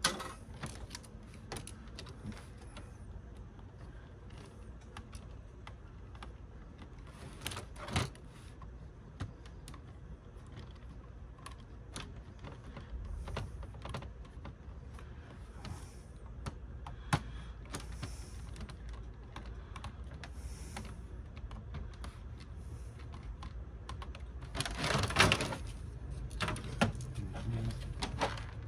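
Scattered clicks and light clatter of small plastic and metal parts being handled while a DVD player is taken apart, with screws and plastic pieces knocking on a table. A denser, louder clatter comes near the end.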